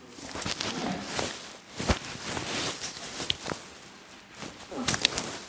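Hands-on chiropractic treatment: rustling of the patient's clothing and the treatment table as the patient's body and neck are handled, with one sharp click about two seconds in and a few smaller clicks near the end.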